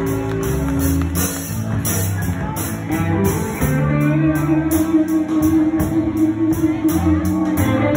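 Live blues band playing an instrumental passage: a drum kit keeping a steady beat on the cymbals, electric bass guitar, and a lead line that settles on one long held note about halfway through.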